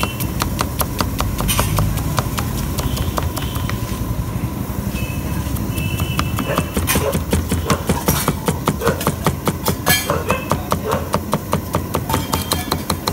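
Knife chopping sliced onions on a wooden chopping block: rapid, even knocks of the blade on the wood, louder in the second half.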